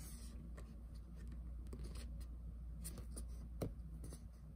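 Faint rustling and light clicks of a paper sticker sheet being handled and tilted in the hands, with one sharper click about three and a half seconds in, over a low steady hum.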